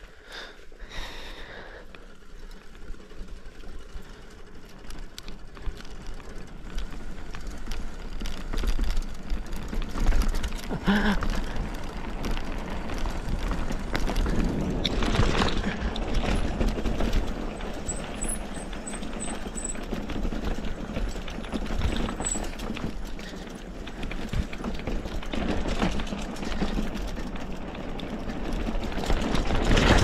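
Mountain bike riding down a dirt trail: tyres on rough ground and the bike clattering over bumps, with wind rumbling on the microphone. It grows louder over the first several seconds as speed builds, then stays loud.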